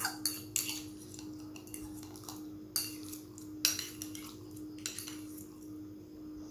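Cutlery clinking and scraping against dishes while eating noodles: a dozen or so sharp, irregular clinks over a steady low hum.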